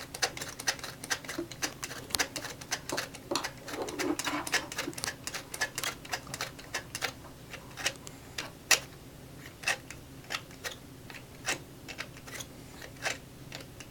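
Hard plastic toy tools clicking and tapping irregularly, a few sharp clicks a second.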